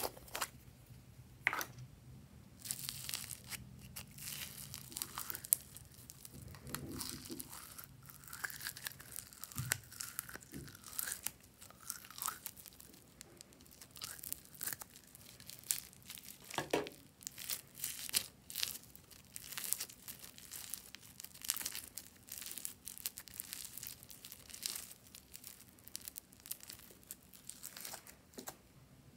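Blue foam-bead slime being pulled out of a plastic container and worked by hand, with a dense, irregular crackling and crunching from the beads.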